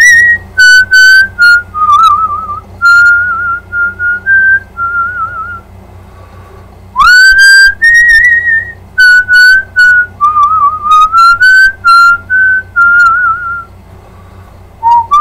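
A man whistling a melody in short held notes with a wavering vibrato, close and loud enough to distort at its peaks. There is a pause near the middle, then a quick upward swoop into the next phrase.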